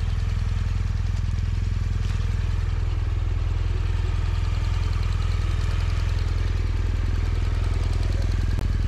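BMW motorcycle engine running steadily, its sound deep and even throughout.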